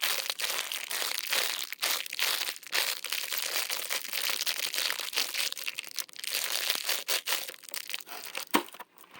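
Packaging crinkling and crackling as a small fidget toy is handled and unwrapped, a dense run of quick irregular crackles that stops shortly before the end.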